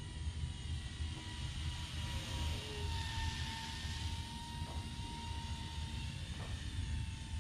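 Small electric RC glider's motor and propeller whining steadily in flight. It grows louder and drops slightly in pitch as the plane passes close about three to four seconds in.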